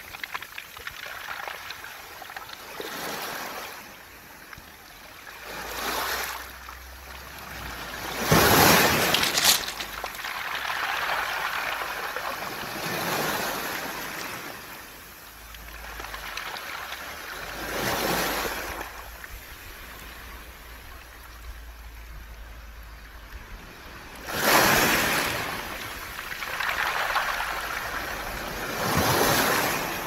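Sea waves washing in and out over a beach of round pebbles, each wave a swelling rush of water with the stones rattling as it draws back. The waves come every few seconds; the two biggest break about a third of the way in and again about four-fifths through.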